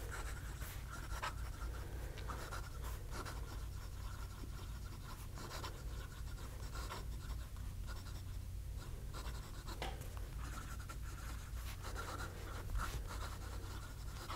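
Cross Townsend fountain pen's 18k gold medium nib writing cursive on paper: soft, intermittent scratching of the pen strokes, over a steady low hum.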